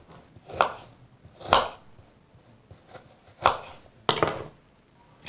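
Kitchen knife chopping raw quince on a wooden cutting board: separate cuts with pauses between them, the last two close together near the end.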